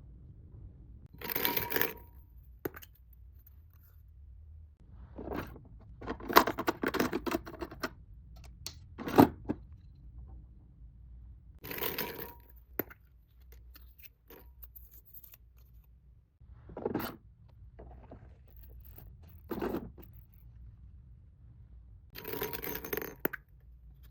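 Packaging and small items from an unboxing being handled: a series of short rustling, scraping and clinking bursts, with a sharp knock about nine seconds in.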